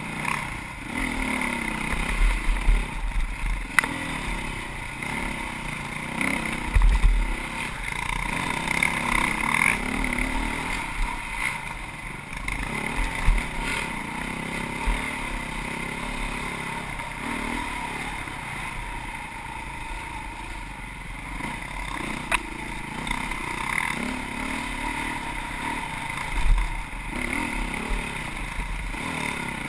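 Dirt bike engine running and revving up and down over uneven trail, heard close up from a camera on the bike, with occasional low thumps.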